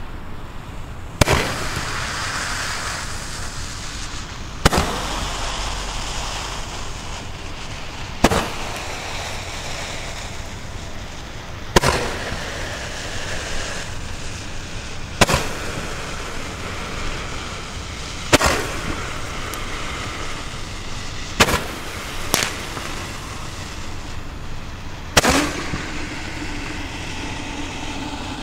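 Hand-held Lesli Roman candle firing its shots one at a time: nine sharp pops, mostly about three and a half seconds apart, two of them close together near the end. A steady hiss runs between the pops.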